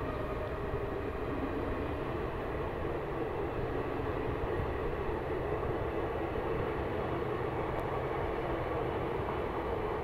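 Passenger coaches of an Indian Railways express train rolling past at speed: a steady rumble of wheels running on the rails.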